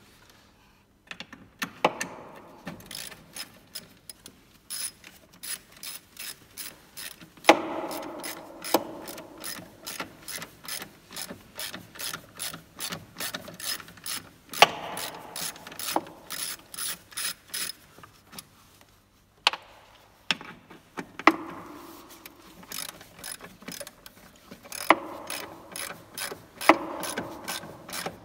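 Hand socket ratchet clicking in steady runs of short strokes, about two clicks a second, as a bolt is turned in an engine bay. There is a brief pause about two-thirds of the way through, and a few sharper, louder knocks among the clicks.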